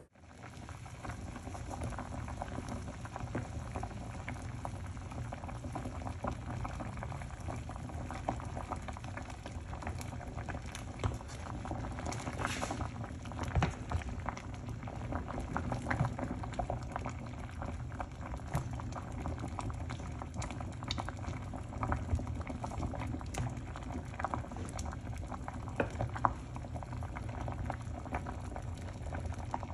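A pot of brown lentils boiling on the stove: a steady bubbling with many small irregular pops, a few of them louder.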